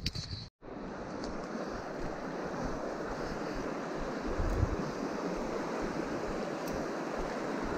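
A shallow, fast-flowing river running over stones, a steady rushing noise, with one low thump about four and a half seconds in.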